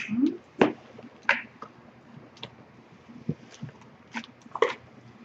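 Spoon stirring thick, sticky cookie dough in a plastic bowl: irregular squelching and scraping, with a few sharper knocks of the spoon against the bowl.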